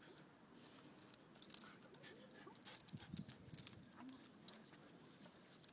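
Faint footsteps and dogs' paws on a paved path: light scuffs and clicks, with a brief low sound about three seconds in.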